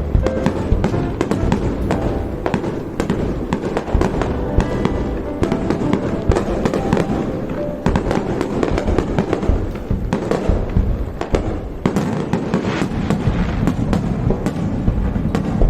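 Aerial fireworks bursting in quick, irregular succession, dense booms and crackles one after another, with music playing underneath.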